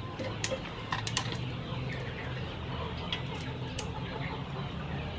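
Kitchen scissors snipping through blue crab shell and legs over a bowl of water: a few sharp clicks in quick succession about a second in, and more around three to four seconds in.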